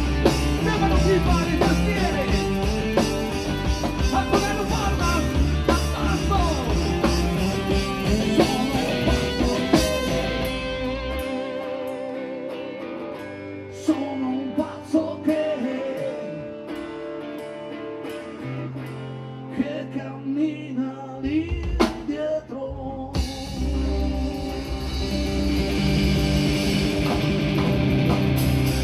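Live rock band playing: electric guitars, bass and drum kit, with singing. A little over a third of the way through, the bass and full drums drop out for a quieter, sparse break with sharp percussive hits. The full band comes back in about five seconds before the end.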